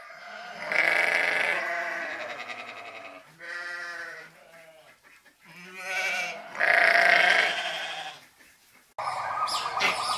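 Livestock bleating: about four drawn-out bleats of roughly a second each, the loudest near the start and near the end, one with a quavering wobble. Near the end it cuts abruptly to birds chirping.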